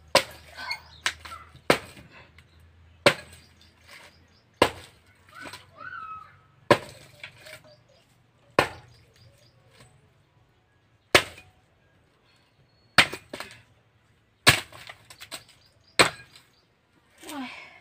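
Axe chopping dry firewood, splitting thin sticks on the ground: about a dozen sharp, separate strikes, one every one to two seconds.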